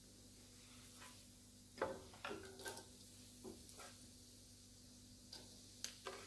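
Chopped green onions, cilantro, sweet peppers and onions dropped into a wok of garlic in oil: a handful of light taps and soft patters over a faint, steady hiss.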